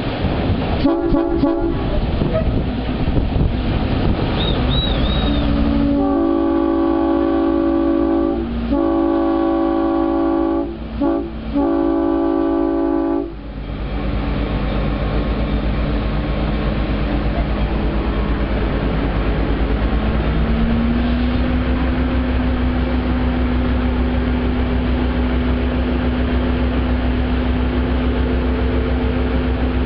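Whitcomb diesel locomotive's horn giving a couple of short blasts, then a long, long, short, long sequence, the grade-crossing signal. After it the locomotive's diesel engine runs steadily, its pitch rising a little about two-thirds of the way through.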